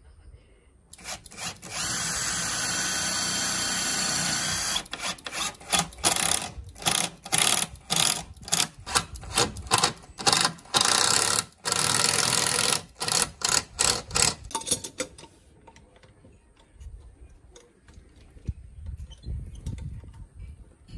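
Power drill running steadily for about three seconds, then switched on and off in a quick string of short bursts for about ten seconds.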